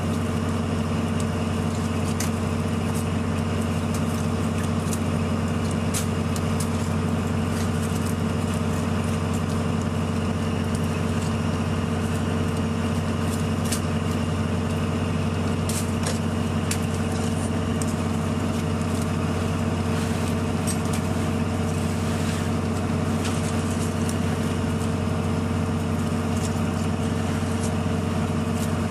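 A fishing boat's engine running steadily with a constant drone, and scattered sharp clicks of scallop shells and shucking knives as scallops are opened by hand.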